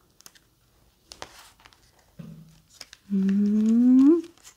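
A woman's hummed, wordless 'hmm' that rises in pitch over about a second near the end. Before it come faint taps and rustles of card stock being shifted by hand.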